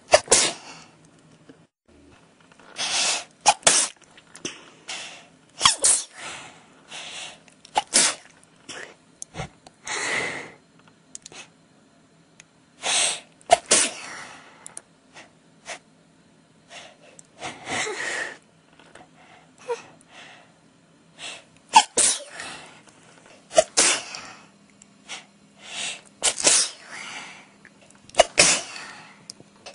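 A person in a sneezing fit, sneezing over and over: about twenty short, sharp sneezes, some in quick pairs, with breaths and sniffs in the gaps.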